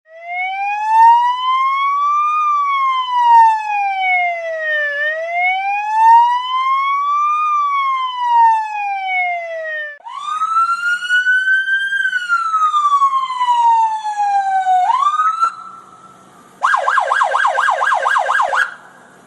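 Electronic emergency-vehicle siren: a slow wail rising and falling twice over about ten seconds. It changes to a second sweeping wail, holds a steady tone briefly, then switches to a fast warbling yelp for about two seconds near the end.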